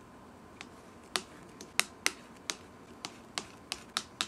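A spoon clicking lightly against the side and rim of a tall container about a dozen times, at an uneven pace of two or three a second, as foam is scooped out of fermenting soy milk.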